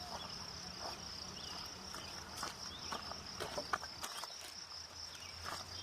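Insects trilling steadily at a high pitch outdoors, with a few short knocks or clicks in the second half.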